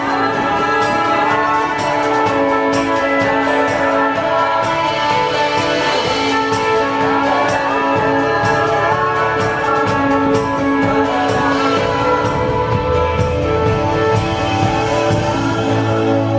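Live band playing a song on two strummed acoustic guitars and an electric guitar, with steady full chords throughout.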